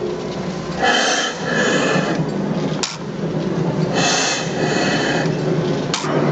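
Old Deutz stationary gas engine turning over slowly: a hissing puff about every three seconds, each followed by a sharp click, over a steady low hum.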